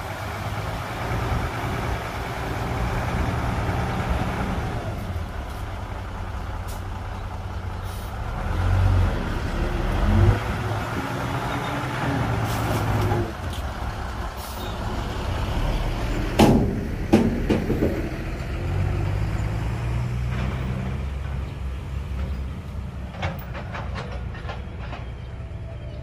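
Heavy diesel earthmoving machinery running, its engine note rising and falling as it works. A short run of loud knocks and clanks comes about two-thirds of the way through.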